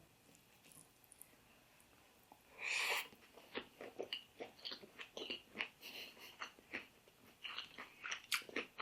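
Faint, close-miked chewing of a mouthful of fried fish and green mango salad. After a short noisy breath about three seconds in come quick, sharp chewing clicks and crunches, two or three a second.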